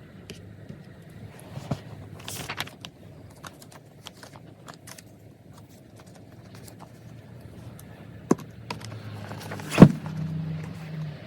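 Scattered small clicks and taps of desk work, with a brief rustle a couple of seconds in and one sharp knock near the end.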